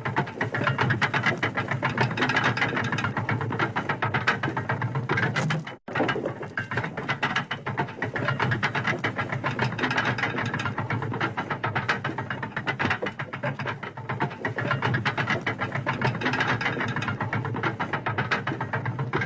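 Railway locomotive turntable turning: a steady, rapid clatter of gears and ratchet-like clicks over a low hum, cutting out for an instant about six seconds in and starting again.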